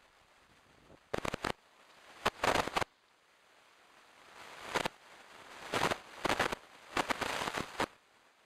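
Red deer moving through dry leaf litter and undergrowth: five bursts of rustling and crackling, each half a second to a second long, the first about a second in.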